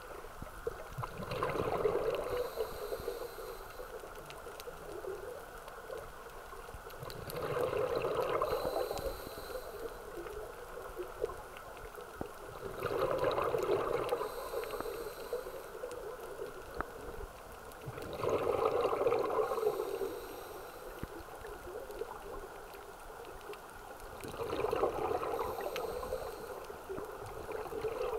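A scuba diver breathing through a regulator underwater: five bursts of bubbling exhalation, evenly spaced about six seconds apart.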